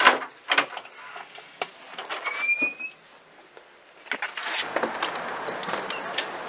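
Door latch clicks and a short, slightly rising hinge squeak as a front storm door is pushed open. From about two-thirds of the way in, a steady outdoor rush of noise takes over.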